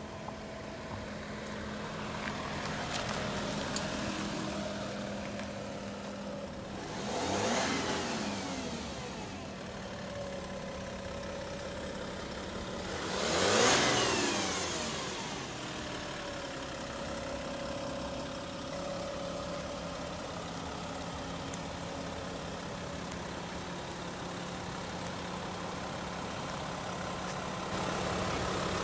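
Porsche Cayenne's 3.0-litre V6 turbo-diesel running as the SUV drives slowly past, with a steady low engine hum and tyre noise. It swells twice as it comes close, the second time loudest with a falling pitch as it passes, then settles to a steady idle.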